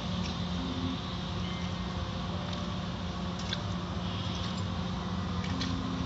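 Automatic car wash heard from inside the car: water and soapy foam spraying and running over the windshield, over a steady hum of the wash machinery. A few brief taps come through around the middle and near the end.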